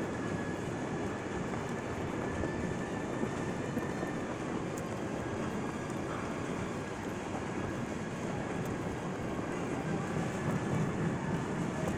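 Steady din of a busy airport terminal concourse, with the rumble of wheeled suitcases rolling over the tiled floor.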